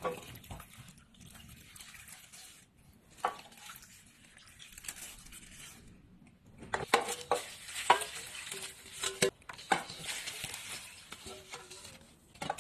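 Water being poured onto potted plants in several separate pours, a hissing splash with short breaks between. A few clicks and knocks are heard as the container and pots are handled, and the pouring grows louder about seven seconds in.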